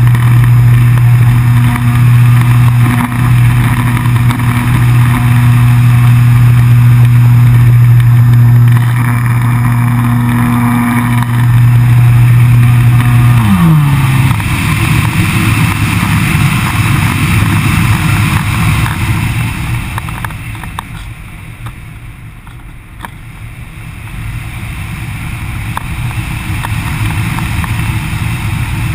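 ParkZone Radian electric glider's motor and propeller running at a steady pitch, then cut off about halfway through, the pitch falling quickly as the propeller spins down. After that, wind rushes over the wing-mounted camera as the glider glides, dipping and then swelling again near the end.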